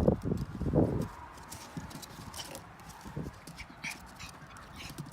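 Dogs scuffling in rough play, with a few heavy thumps in the first second, then lighter paw steps and scattered clicks.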